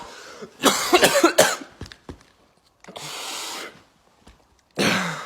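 Coughing: a cluster of harsh coughs about a second in, a steady hiss a little past the middle, and one more loud cough near the end that fades out.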